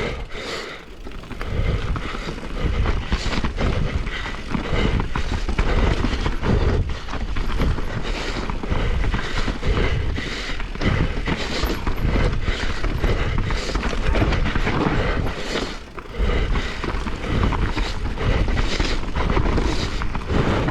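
Mountain bike riding down a dirt trail: wind buffeting the camera's microphone in a steady low rumble, with frequent knocks and rattles from the bike running over roots and rocks.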